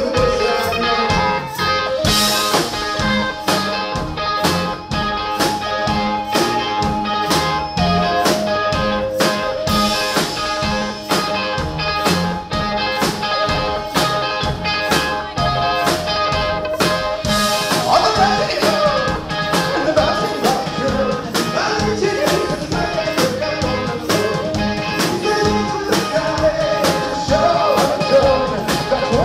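Live indie rock band playing: a drum kit keeps a steady beat under electric guitar and held keyboard notes, with a voice singing over it.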